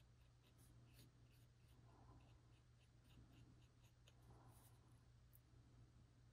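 Near silence: a low steady hum, with faint light ticks and scratches of a pick tool and a thin stick placing tiny stones on a resin-coated wood earring blank.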